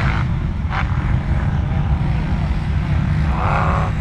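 ATV engines running in the background as a steady low rumble, with a brief higher note near the end.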